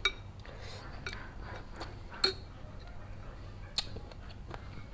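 Metal spoon and fork clinking and scraping against ceramic soup bowls: a few sharp clinks, the loudest about two seconds in, others at the start and just under four seconds in, with lighter taps between.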